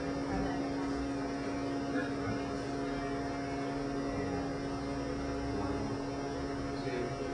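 Steady electrical mains hum with two constant tones, one low and one mid-pitched, over a faint rumbling room tone.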